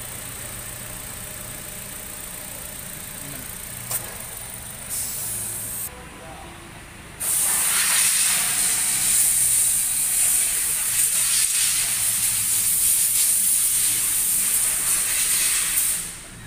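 A steady hiss of air or gas under pressure. After a click about four seconds in and a short burst a second later, a much louder hiss starts abruptly about seven seconds in and cuts off sharply near the end.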